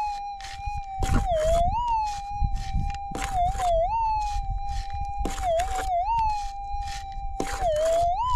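Gold metal detector's steady threshold tone, dipping and warbling as a pick repeatedly strikes and scrapes the gravelly ground beside its coil, a few strikes a second.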